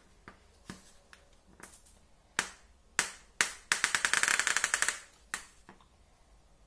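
Hand-held murukku press being worked to squeeze dough out onto a plate: a string of sharp clicks and knocks, with a rapid creaking for about a second around four seconds in.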